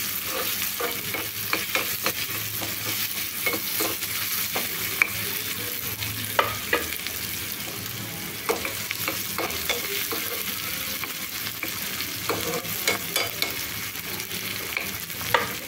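Chopped onion, tomato and chillies sizzling in hot oil in a non-stick kadai for a dal tadka, stirred with a steel spoon that scrapes and clicks against the pan many times.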